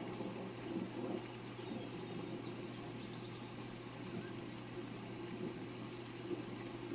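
Steady rain falling, with a few faint bird chirps about two and a half to three seconds in.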